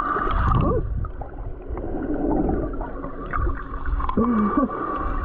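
Seawater sloshing and gurgling around a camera held at or just under the surface, with a steady low rumble and two brief muffled pitched sounds.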